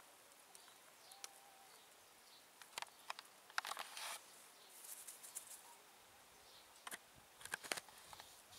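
Faint outdoor ambience: a low steady hiss with two clusters of sharp, high ticks and chirps, one about three seconds in and another about seven seconds in, and a brief faint whistle about a second in.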